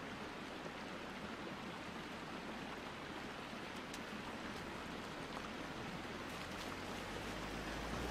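Shallow rocky stream running steadily with light splashing as a Mercedes X-Class X350d pickup wades through it. The truck's V6 diesel comes up as a low hum underneath near the end.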